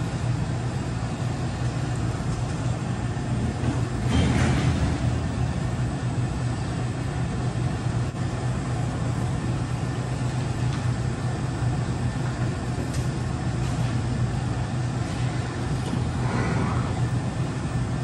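A steady low rumble and hiss like a running vehicle, with a louder swell about four seconds in and a smaller one near the end.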